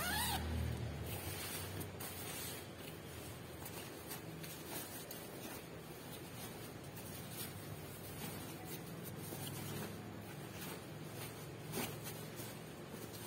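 Rustling and scratching of a padded nylon jacket being handled, turned and folded, with a zipper run open near the start.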